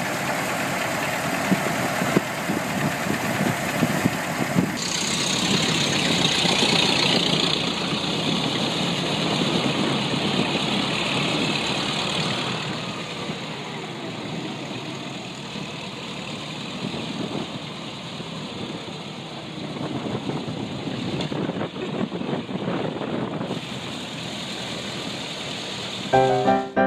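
Ford Model T's four-cylinder engine running as the open car drives along, heard from on board with road and wind noise; the sound shifts abruptly a few times. Piano music comes in right at the end.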